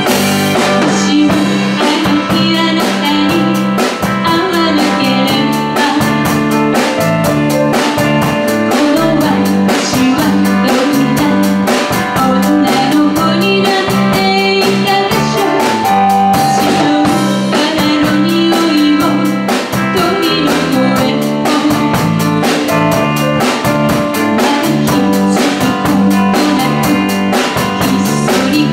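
Live band performing a pop song: a woman singing over electric guitar, electric bass, drum kit and keyboard, with a steady beat.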